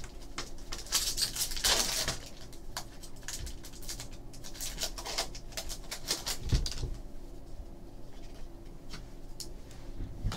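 Foil trading-card pack crinkling and crackling as it is opened by hand, then cards sliding out and being flipped, the crackle thinning after about seven seconds. A single thump about six and a half seconds in.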